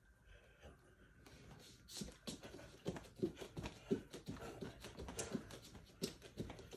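Bare feet stepping on a wooden floor while dancing, an irregular run of soft thumps that starts about two seconds in after a quieter stretch.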